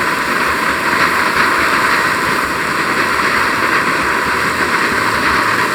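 Ribeye steak sizzling steadily as it sears in smoking-hot oil in a pan.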